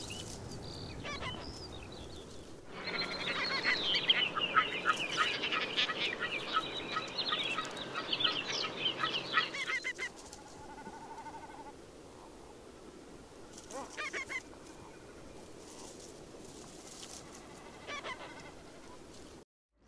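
A flock of ruffs calling: a dense run of rapid, repeated calls from about three seconds in to about ten seconds in, then a few scattered calls.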